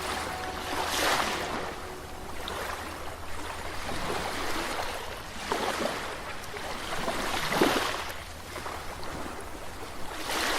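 Caribbean sea waves washing in, rising in several surges about a second, five and a half and seven and a half seconds in, over a steady low rumble.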